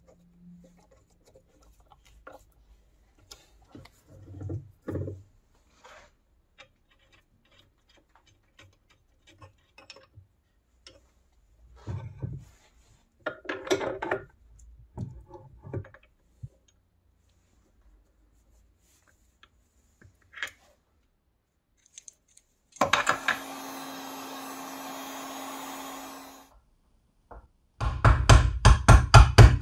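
Small metal clicks, knocks and rubbing as drill-press parts are fitted by hand with a hex key, then a steady whirr lasting about four seconds. Near the end comes a fast run of loud hammer blows, about four a second, driving a ball bearing onto a shaft through a tube driver.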